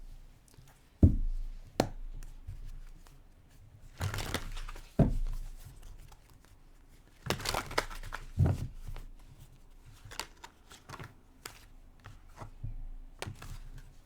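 Tarot cards being shuffled and handled: short riffling bursts and scattered knocks against a surface at irregular intervals.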